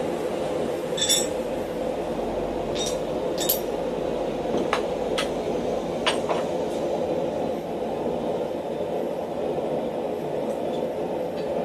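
Hardened steel tool pieces clinking against each other and the steel base as a blacksmith's guillotine tool is handled and set down. There are about seven sharp clinks in the first six and a half seconds, over a steady low rushing noise.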